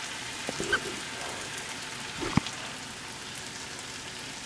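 Food sizzling in a hot frying pan: a steady, even hiss, with a few light clicks and one sharper knock about two seconds in.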